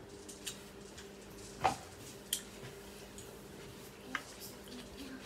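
A few small clicks and taps from red plastic cups being handled, over a steady low hum.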